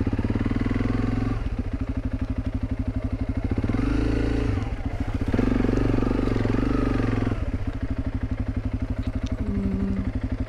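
Honda CRF300 Rally's single-cylinder engine running at a low, steady beat; it revs up about four seconds in as the bike moves off, then drops back to idle about seven seconds in.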